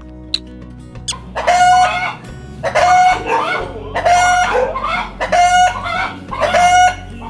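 Chicken calling five times in a row, near-identical calls about every second and a half, over background music.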